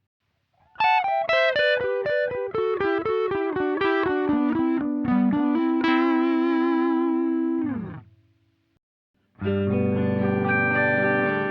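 Electric guitar through a Zoom MS-70CDR+ harmony pitch shifter, playing a descending run of picked single notes into a held note that slides down and stops. About nine seconds in, a chord rings out through the pedal's polyphonic pitch shifter.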